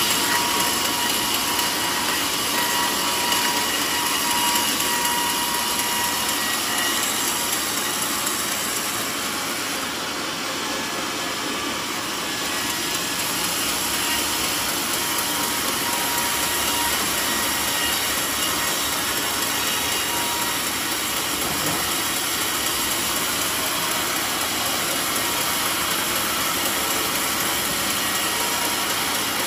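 Band sawmill running and cutting a mahogany log into planks: a steady, loud machine noise, dipping slightly about a third of the way through.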